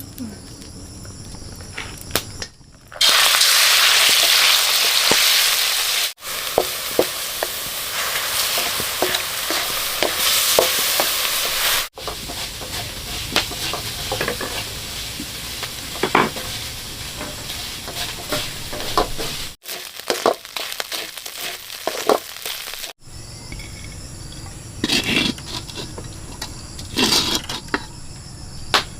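Meat sizzling as it fries in a hot pan, with small clinks and scrapes of stirring. The frying comes in several short stretches that start and stop abruptly, loudest from about three to six seconds in.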